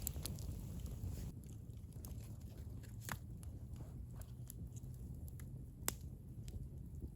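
A person eating close to the microphone: biting and chewing, with scattered small crunchy clicks.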